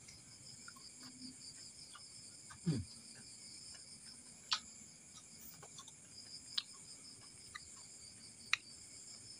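Steady, high-pitched chirring of crickets. Three sharp clicks come about two seconds apart in the second half, and a short sound falls in pitch just under three seconds in.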